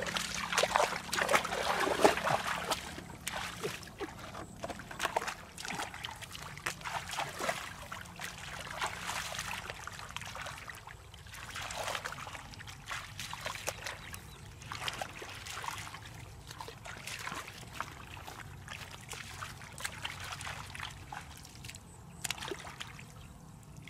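Hands splashing and sloshing in shallow muddy water while groping for catfish in the mud, an irregular run of splashes and dribbles, busiest in the first couple of seconds.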